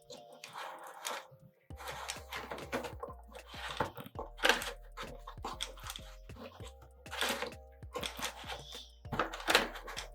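Background music with held tones and a steady low bass from about two seconds in, over repeated knocks, clicks and rustles of small toy capsules and packaging being handled.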